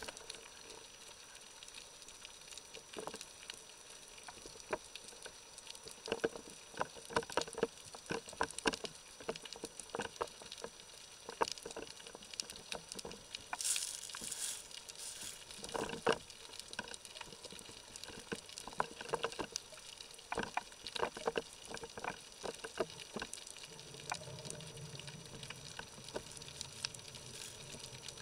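Underwater ambience as heard through a submerged camera: scattered, irregular sharp clicks and crackles over a faint hiss, with a brief high hissing rush about halfway through and a faint low hum near the end.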